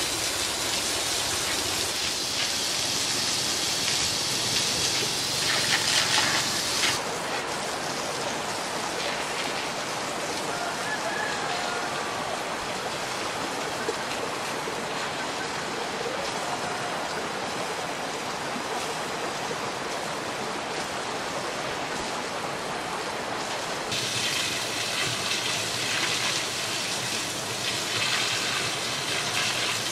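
Steady rush of water with no rhythm. It is brighter and hissier for the first seven seconds or so and again from about 24 seconds on.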